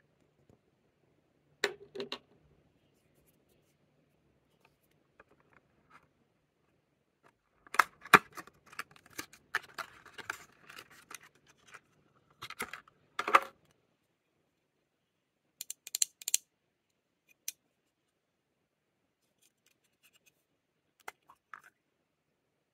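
Lip balm packaging being handled and opened by hand: scattered sharp clicks and crinkling rustles. There are two clicks about two seconds in, a busy run of clicking and rustling in the middle, a short high crinkle a little later, and a few faint clicks near the end.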